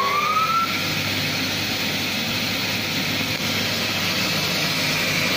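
CNC vertical band saw's drive motor and blade spinning up after being switched on: a rising whine that levels off about half a second in, then a steady running sound as the blade comes up to speed.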